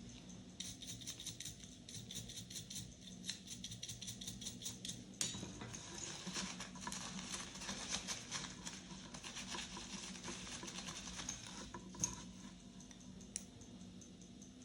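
Fast fine scratching and scrubbing on the small metal parts of a Slava alarm clock being cleaned, getting denser and more continuous through the middle, then two sharp clicks near the end.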